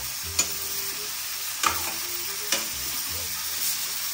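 Meat sizzling as it fries in hot oil in a pan, stirred with a spatula that knocks against the pan three times.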